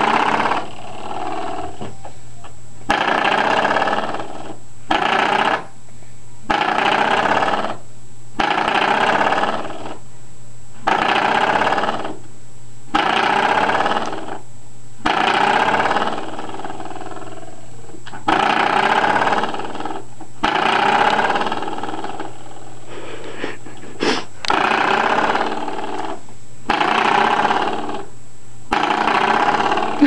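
Coiled-spring door stopper flicked again and again, each flick a buzzing, twanging boing lasting a second or two, repeated about every two seconds.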